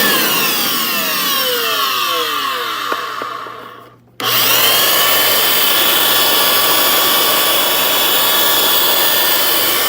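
Hoover FloorMate spin-scrub hard floor cleaner's motor winding down, its pitch falling until it goes almost silent about four seconds in. It then starts up again abruptly and runs steadily.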